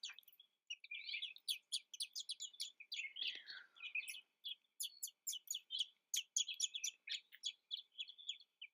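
American robin nestlings chirping in a rapid, high-pitched stream of short notes, the begging calls that follow a feeding, with one falling note about three seconds in.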